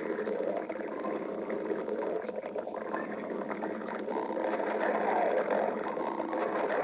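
A hungry human stomach growling: a continuous rumbling gurgle that grows louder about four seconds in, with a few faint clicks.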